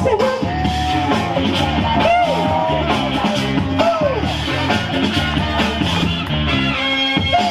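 Loud music played by the DJ over the sound system: a steady drum beat with a bassline and a singing voice.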